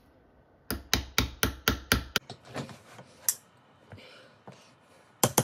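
Hammer blows driving a Toni System red dot plate sideways into the rear-sight dovetail of a Beretta 92X Performance slide, struck through a rubber buffer. A quick run of about seven strikes at roughly four a second is followed by a single knock, and another fast run starts at the very end. The plate is a tight fit in the dovetail and takes a lot of hammering to go in.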